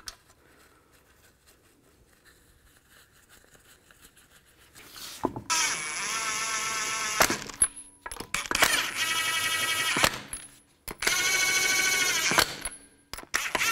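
Cordless impact wrench run in four short bursts of hammering rattle, starting about five seconds in, each dropping in pitch as it stops. It is spinning the lug nuts down to snug the wheel on before they are torqued by hand.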